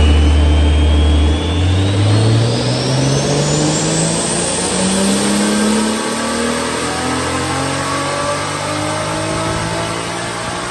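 Toyota 2JZ turbocharged inline-six in a tuned 80-series Supra running a pull on a chassis dynamometer: the revs climb steadily under load for several seconds, with a high whine rising alongside the engine note.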